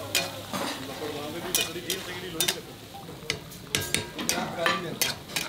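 A metal spatula stirring in a karahi wok over a fire, with repeated irregular scrapes and clinks against the pan. Under them the tomato-and-meat gravy is sizzling.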